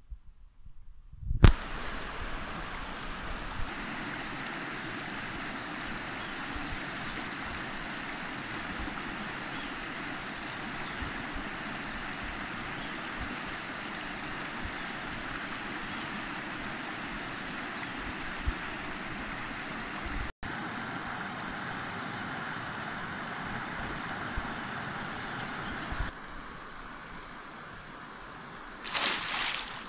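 A fast-flowing river rushing steadily, starting abruptly after a sharp click about a second and a half in. There is a brief louder burst of noise near the end.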